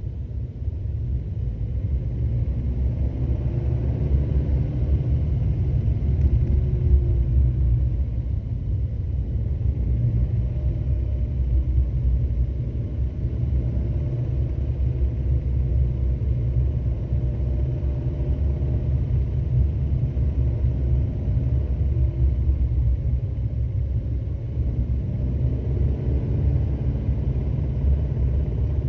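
BMW N43 2.0-litre four-cylinder petrol engine running with a low rumble, its pitch rising and falling a little. It carries the speed-dependent knocking rattle of the timing chain, worst at about 1900 rpm under part load, which is the sign of a failing chain tensioner.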